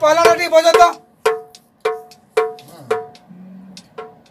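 Dhol drums struck by hand, with a pitched, ringing tone on each stroke. A quick flurry of strokes comes first, then single strokes about every half second that grow softer.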